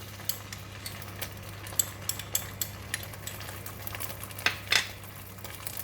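Thai red curry paste frying in hot oil in a pan, a steady sizzle, with a spatula scraping and clicking against the pan as the paste is stirred; a few louder knocks come near the middle and around the last second and a half.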